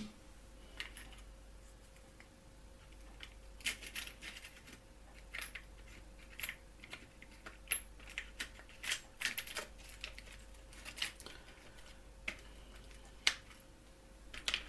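Small Dremel bits clicking and rattling against a plastic storage box as fingers rummage through its drawers: scattered light clicks and taps at an uneven pace, over a faint steady hum.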